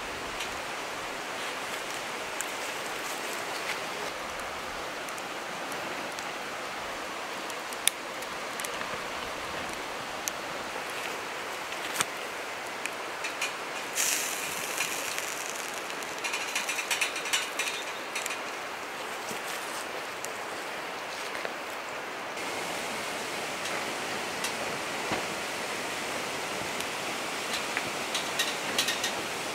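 Steady rush of flowing river water with an occasional sharp pop from the wood fire. About halfway through, a stretch of light metallic clinking and rattling as the skewers are turned on the wire-mesh grill.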